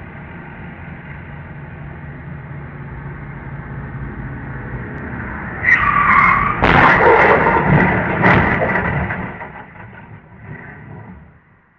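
Road traffic growing louder, then tyres squealing under hard braking. About a second later comes the loud crash of a car collision, with crunching metal and a second impact, before the noise dies away.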